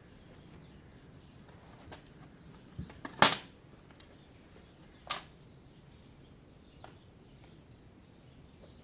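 Hand staple gun firing upholstery staples: a few small clicks, then one loud sharp snap about three seconds in and a weaker snap about two seconds later.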